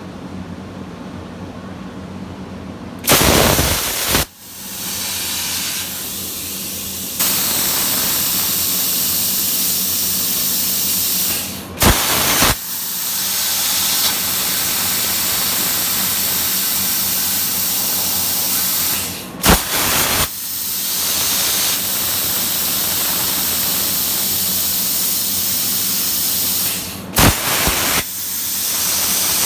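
Plasma cutter torch on an Arcdroid CNC cutting steel: a steady loud hiss, with a short louder burst about every eight seconds.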